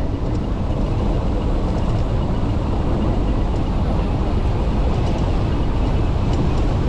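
Wind buffeting the microphone with the rumble of knobby 26-inch fat tires on the road during a fast ride on a high-power hub-motor e-bike; a steady, heavy rush of noise.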